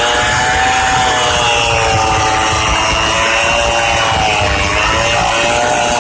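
STIHL 070 two-stroke chainsaw running at high revs while ripping a log lengthwise. Its pitch sags briefly about four and a half seconds in and then picks back up.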